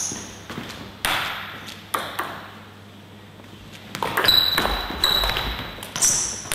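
Celluloid table-tennis ball clicking off bats and the table. First come a few single clicks about a second apart. Then, about four seconds in, a quick rally of hits starts, with the last sharp click near the end.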